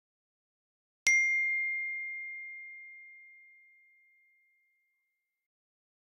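A single bell-like chime struck once about a second in, ringing on one clear high tone and fading away over three to four seconds.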